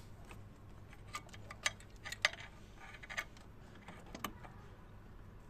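Scattered light metallic clicks and taps as hands handle parts and fittings at the diesel injection pump, loudest about two seconds in.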